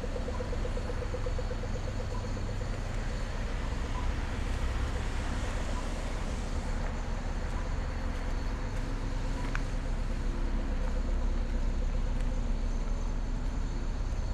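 Street traffic: a steady rumble of cars and trucks running and passing, with faint short beeps recurring every second or so.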